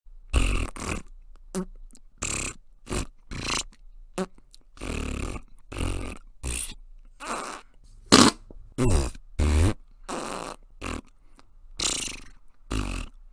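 A string of about twenty short fart sounds, a few with a rising or falling pitch, spoken as the sentence "Is this your parent?" in Flatula, an invented language of farts.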